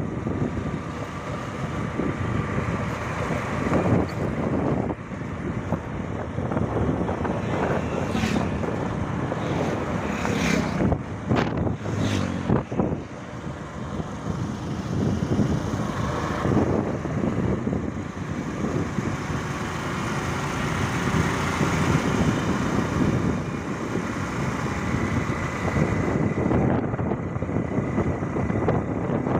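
Wind buffeting the microphone over the steady running noise of a moving vehicle, with a few knocks about a third of the way in.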